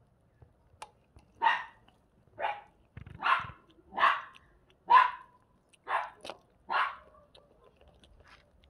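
A dog barking, about seven short barks roughly a second apart.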